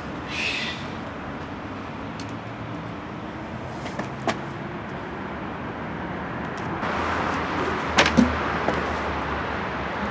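Street traffic noise: a steady hum that grows louder in the second half with a low rumble. A few sharp clacks sound through it, one about four seconds in and two close together about eight seconds in.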